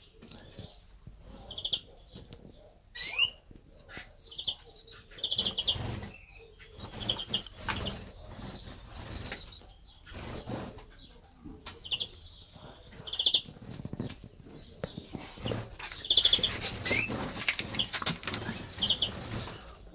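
Canaries in a flight aviary fluttering their wings and giving short high chirps, scattered irregularly, with one rising call about three seconds in.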